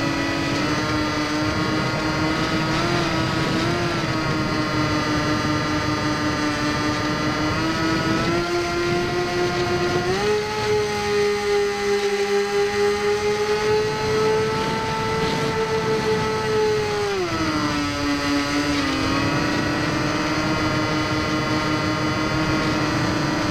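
Electric motor and propeller of a Firebird Stratos RC plane whining steadily, heard from a camera on board the plane, over a rush of air. The pitch steps up about eight and ten seconds in as the throttle opens for a climb, holds, then drops back after about seventeen seconds.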